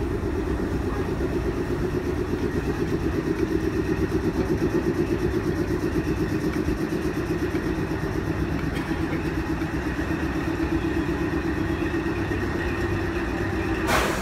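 A train standing at the platform with its engine idling: a steady, pulsing drone. There is a sharp knock near the end.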